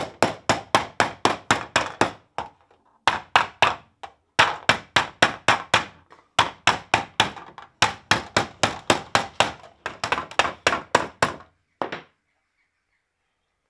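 A hand hammer strikes a thin copper disc over a hollow in a wooden block, with rapid blows about four a second in runs broken by short pauses. It is sinking the flat disc into a shallow dish. The blows stop about eleven seconds in, with one last blow near twelve.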